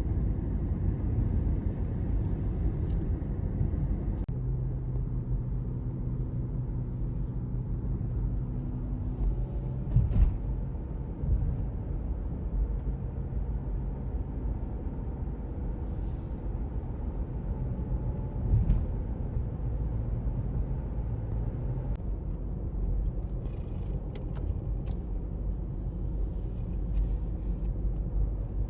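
Car cabin while driving: a steady low rumble of engine and road noise, with a few faint knocks and clicks along the way.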